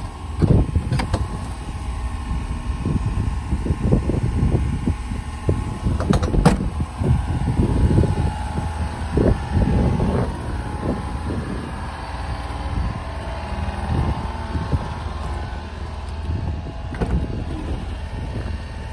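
Wind buffeting the microphone: a gusty, uneven low rumble, with a couple of sharp clicks about six seconds in.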